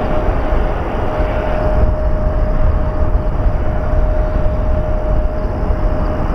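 Jet airliner engine noise: a steady rumble with a thin, steady tone held over it.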